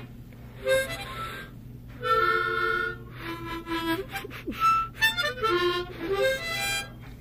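A large toy metal harmonica with two rows of 20 holes being played: a series of short notes and held chords with breaks between breaths, then quicker notes stepping downward near the end.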